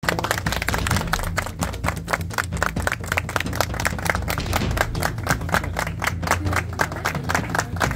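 A group of people clapping their hands in welcome: many separate, uneven claps, with a steady low rumble underneath.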